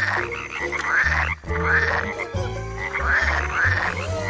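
A chorus of male frogs croaking their mating calls: deep, low croaks throughout, with higher, noisier calls repeating about twice a second.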